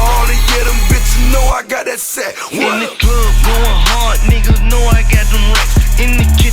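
Hip hop track with rapped vocals over a heavy bass beat; the bass drops out briefly about a second and a half in, then comes back. The sound is distorted from the video's rendering.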